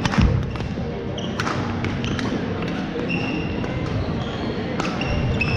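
A badminton racket striking the shuttlecock hard on a jumping smash about a quarter second in, followed by a few more sharp knocks and short high squeaks of court shoes on the hardwood floor, over a background wash of play and chatter in a large gym hall.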